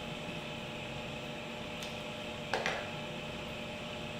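Steady room hum with a spoon clinking once against a plate about two and a half seconds in, and a fainter tick just before it.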